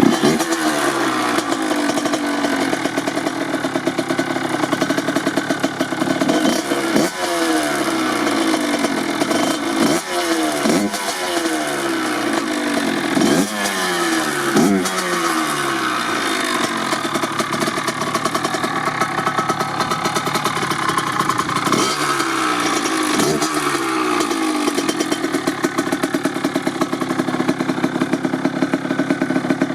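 1997 Kawasaki KX80's single-cylinder two-stroke engine, fitted with a DEP S2 silencer, idling while warming up after a cold start. The throttle is blipped again and again, each rev rising sharply and falling back to idle, in a run of blips near the middle and a couple more later.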